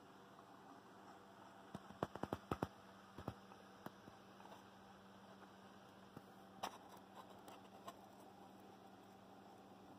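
Faint handling noise: a quick cluster of clicks and taps about two seconds in and a few scattered ones later, over a steady low hum.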